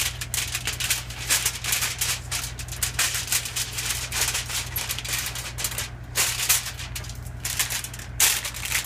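Aluminium foil crinkling and crackling in irregular bursts as hands fold it and press it down over a pan, with a steady low hum underneath.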